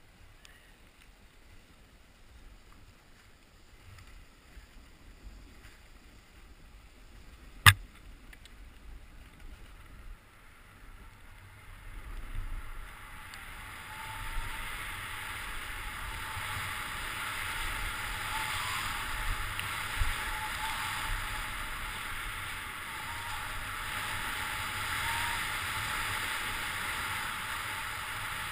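Skis hissing and scraping as they slide over groomed snow, faint at first and growing louder about halfway through. A single sharp click comes about eight seconds in.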